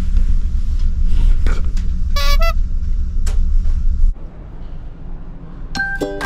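Ferry's low, steady engine rumble with a deep hum. A short horn-like toot comes about two seconds in. The rumble cuts off about four seconds in, and light music with bell-like notes begins near the end.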